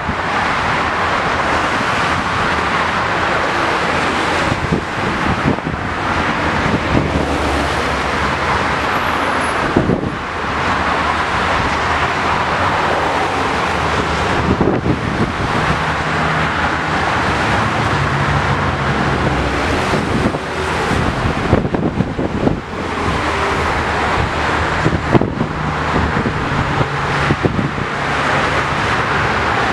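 Dense highway traffic passing at speed: a continuous rush of tyre noise from cars, pickups and trucks. A deeper engine drone from heavier vehicles comes through a little past halfway and again near the end.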